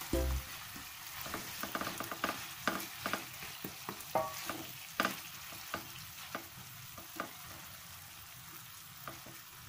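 Eggplant chunks sizzling in a Carote nonstick frying pan of oil and blended chili paste, turned over with a wooden spatula that knocks and scrapes against the pan in short irregular clicks over a steady hiss.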